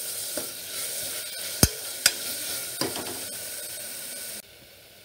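Onions and green chilli–ginger–garlic spice paste sizzling in hot oil in a pressure cooker pot while a utensil stirs them, knocking sharply against the metal pot twice. The sizzling drops away abruptly near the end.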